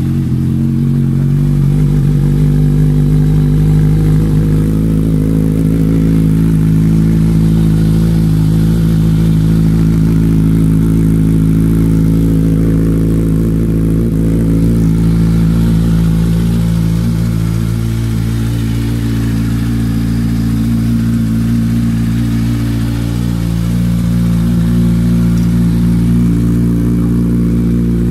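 2019 Kawasaki Z1000R's inline-four engine idling steadily through an Orion slip-on muffler fitted with a dB killer with catalytic converter. The exhaust is still noisy, but the dB killer has cut down the loud, ear-hurting note.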